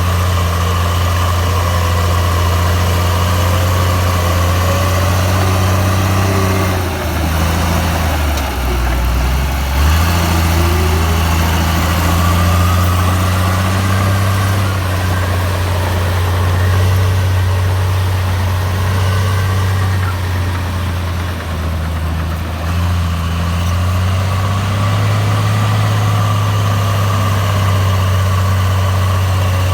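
Komatsu bulldozer's diesel engine running steadily. About seven seconds in, its pitch sags for a few seconds and a deeper rumble comes up, then it picks back up.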